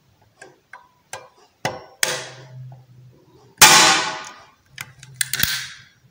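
Hand-squeezed chrome wood staple gun, the 3-in-1 upholstery type, being worked and fired into a strip of wood: a series of small metallic clicks as the handle is squeezed, then a sharp metallic snap with a ringing tail about three and a half seconds in as it drives a 10 mm 1010J staple, and a second burst of clacks near the end.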